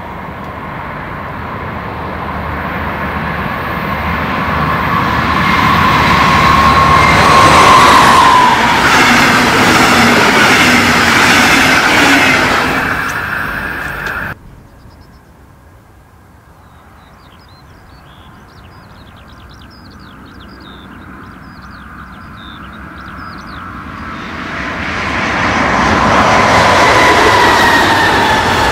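A train hauled by a DB class 218 diesel-hydraulic locomotive passes close by. Its engine whine and rumble swell, the whine drops in pitch as it goes past, and the sound cuts off suddenly about halfway. After faint birdsong, a second train with double-deck coaches approaches and passes loudly, its whine falling in pitch near the end.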